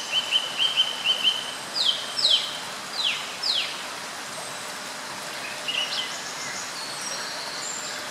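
Small songbirds singing: a quick run of about eight short notes, then four sharp whistled notes that slide downward, with a few higher, thinner calls later. A steady background hiss runs underneath.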